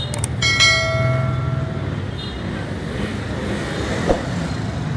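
Steady street-traffic rumble with a single vehicle horn sounding one held note for just over a second near the start. There is a short sharp click a little after four seconds in.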